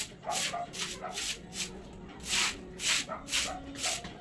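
Rhythmic scrubbing strokes of a dog being washed by hand, about three strokes a second, with one longer stroke about halfway through.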